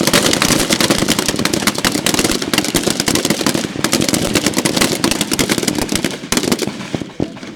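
Many service rifles firing at once along a firing line, the shots overlapping into a dense crackle of control pairs that thins out to a few scattered shots near the end.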